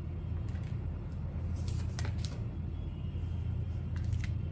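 Tarot cards being drawn and laid down on a table: several brief card slides and taps over a steady low hum.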